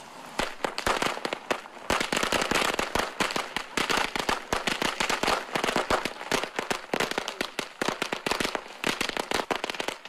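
A string of firecrackers going off in rapid, sharp cracks, many a second, growing thicker about two seconds in.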